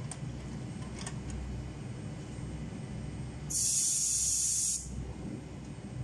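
Air hissing out of an electric scooter's front tyre valve in one burst of a little over a second, about halfway through: the valve is being pressed to let air out of an over-inflated tyre and soften it.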